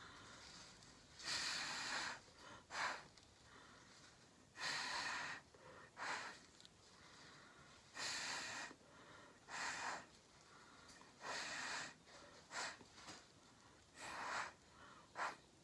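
Repeated puffs of breath blown through a straw onto wet acrylic pour paint, blowing the paint outward. There are about a dozen airy puffs, some near a second long and some brief, with short pauses between them.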